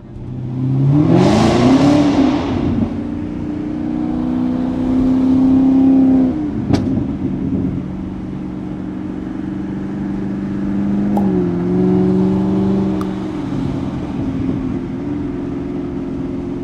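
Car engine heard from inside the cabin while driving: it revs up over the first couple of seconds, then runs at a steady pitch, easing off slightly about two-thirds of the way through. A few faint clicks sound over it.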